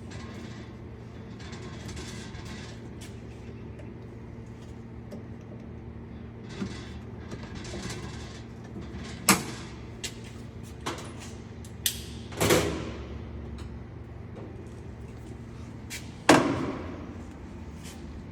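A few sharp knocks as a nylon drawer slide handle is worked onto the release tab of a heavy-duty locking drawer slide. The loudest knock comes near the end and rings briefly, over a steady low hum.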